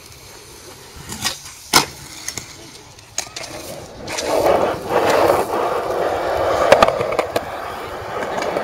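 Skateboard wheels rolling over rough concrete, a steady rumbling hiss that starts about four seconds in. Before it come two sharp clacks, about a second and a half in.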